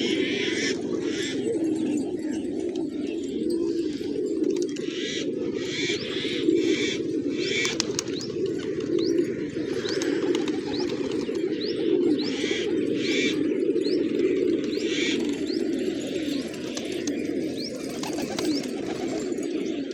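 A flock of pigeons cooing together in a steady, overlapping low throng, with short rustles of wings and a few thin high chirps over it.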